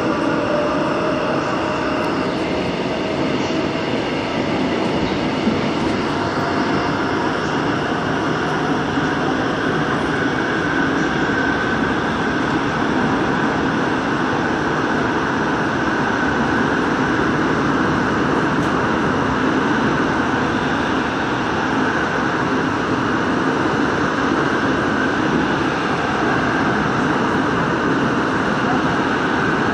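Daegu Metro Line 2 subway train running at speed through a tunnel: a steady rumble of steel wheels on rail, echoing off the tunnel walls, with a faint motor whine rising slightly near the start.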